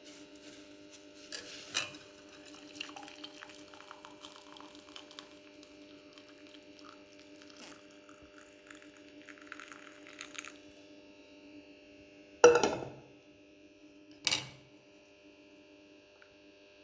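Hot kahwa poured from a pot through a strainer, a running trickle with light clinks of utensils for about the first ten seconds, over a steady hum. Then two loud clanks, like a metal pot or strainer being set down, near the end.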